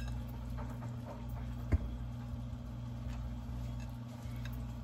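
A steady low hum with faint clinks of forks working baked potato in ceramic bowls, and one sharp knock a little under two seconds in.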